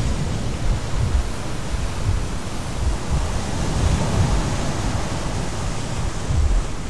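Strong wind rushing past and buffeting the microphone: a steady hiss with irregular low gusts, swelling about halfway through.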